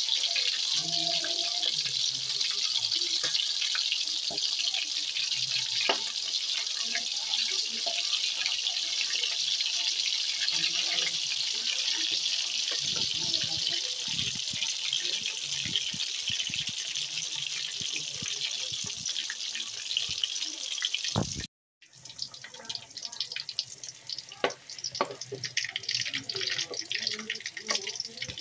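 Chicken pieces deep-frying in hot oil in an aluminium kadai: a steady, bright sizzle with a few sharp pops and clicks. The sound breaks off for a moment about three quarters of the way through, then the sizzle carries on.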